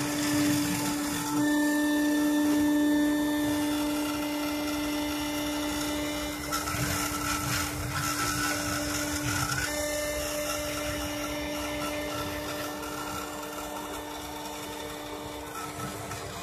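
Handheld rotary tool spinning steadily as the spindle of a homemade CNC engraver while it cuts lettering into a clear plastic sheet, a high motor hum. Higher whining tones from the laser-printer stepper motors shift a few times as the axes move the work.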